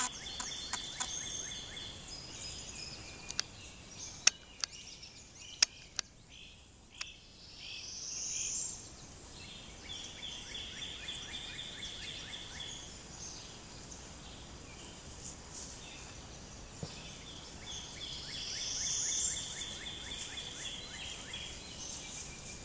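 Woodland ambience with a call repeating about every ten seconds: a rising whine, then a pulsing buzz. A few sharp clicks or snaps sound between about three and seven seconds in.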